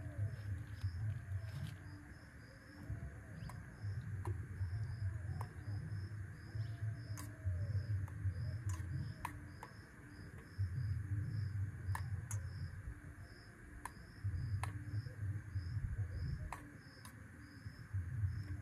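An insect chirps steadily in short high pulses, about four a second. Gusts of wind buffet the microphone with a low rumble that comes and goes. A few sharp clicks sound in between.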